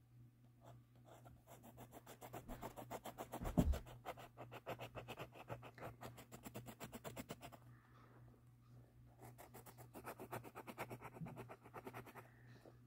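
Rapid back-and-forth scribbling on paper, colouring in a drawing, in two spells with a short pause between them. A single thump about three and a half seconds in is the loudest moment.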